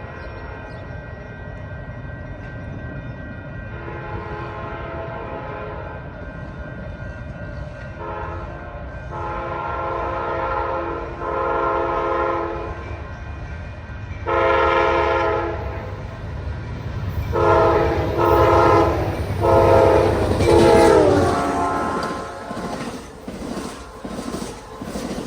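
Multi-chime air horn of an Amtrak passenger diesel locomotive sounding a long series of short and long blasts, growing louder as the train approaches over a low engine rumble. The chord bends down in pitch on the last blasts as the locomotive passes. The cars then run by with wheels clicking over the rail joints.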